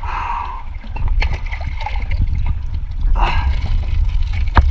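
Shallow sea water splashing and sloshing around people wading, with a steady low rumble underneath and a sharp knock near the end.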